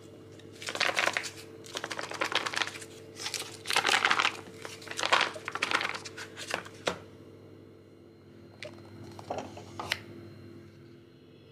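Plastic film wrapping of a ready-meal tray crinkling as hands handle it, in irregular bursts for the first seven seconds or so, then a few fainter rustles near the end. A steady low hum runs underneath.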